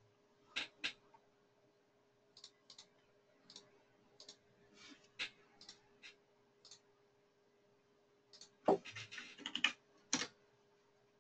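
Computer mouse clicks and keyboard keystrokes on a desk. Scattered single clicks come through the first several seconds, then a quick run of keystrokes about eight and a half seconds in, and one louder key press just after ten seconds. A faint steady hum runs underneath.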